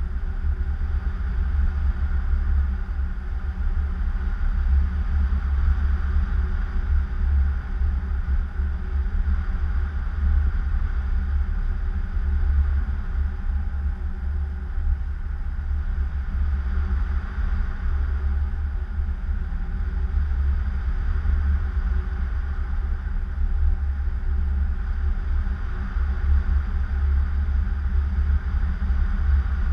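Wind from a paraglider's airspeed buffeting the camera's microphone: a steady low rumble that swells and eases.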